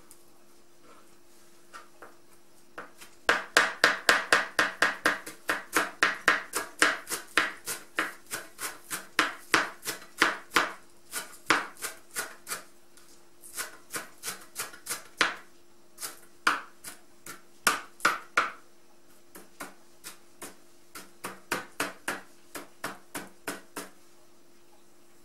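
Kitchen knife chopping fresh dill on a plastic cutting board: quick, even strikes, about three a second, starting a few seconds in and going on in runs with short pauses until just before the end.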